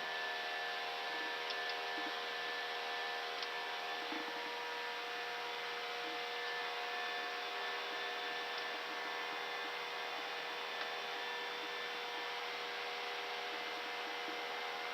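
Steady hum and hiss in an Airbus A319 cockpit during the climb, with several fixed steady tones running under it.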